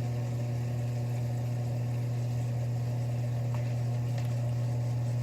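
Miele Diamante dishwasher filling with water with its front panels off: a steady low humming with water running. The owner places the hum at the water softener's salt reservoir. It is a normal sound, heard before the circulation pump starts.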